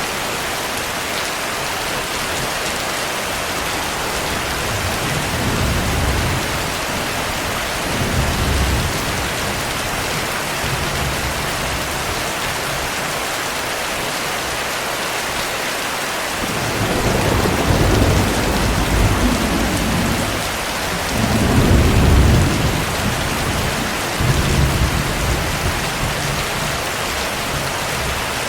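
Steady heavy rain with rolling thunder: a few short low rumbles in the first half, then a louder, longer roll of thunder past the middle that swells twice before trailing off.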